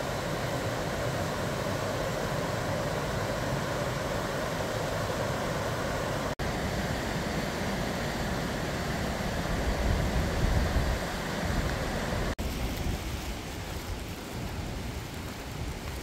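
Mountain stream rushing over rocks: a steady hiss of white water. The sound drops out for an instant twice, a low rumble swells briefly around ten seconds in, and the rush is somewhat quieter over the last few seconds.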